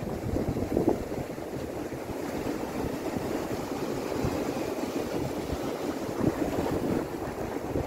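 Steady low rushing of wind and water, with wind buffeting the microphone in uneven gusts.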